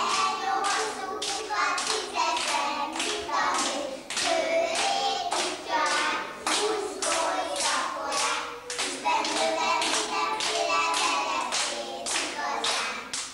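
A group of young children singing together while clapping their hands to a steady beat.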